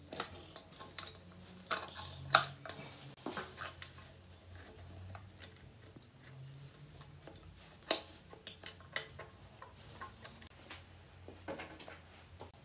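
Steel drive chain and sprockets of a Buick gearbox clinking and rattling as they are handled and worked loose by hand: irregular metallic clicks and knocks, the sharpest about two seconds in and again near eight seconds.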